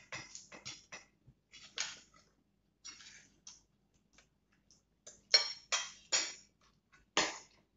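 Spoon and cutlery clinking and knocking against ceramic bowls and plates during a meal: scattered sharp clicks, with three louder clinks in quick succession about five seconds in and another just after seven seconds.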